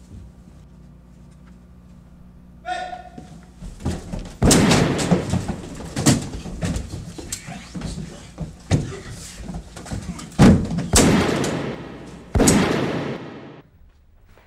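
Hand-to-hand fight: a run of loud hits, thuds and slams against walls and doors, mixed with voices shouting and grunting, that stops suddenly near the end.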